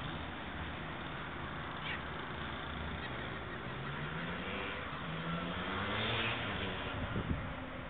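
Wind buffeting the microphone in a steady rush, with a long drawn-out pitched call rising and falling from about three and a half to six seconds in, and a few knocks near the end.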